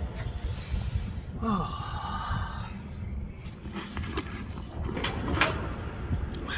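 Wind buffeting the phone's microphone with an uneven low rumble. A person sighs about a second and a half in, and a few light clicks come later.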